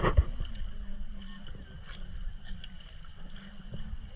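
Small boat on the water: a steady low rumble of hull and water, with a couple of sharp knocks right at the start.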